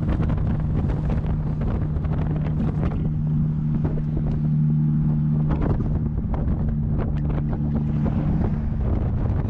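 An engine running at a steady hum, with wind buffeting the microphone throughout.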